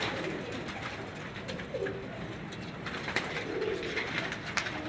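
Domestic pigeons cooing softly in a wire-mesh loft, with a few sharp taps near the end.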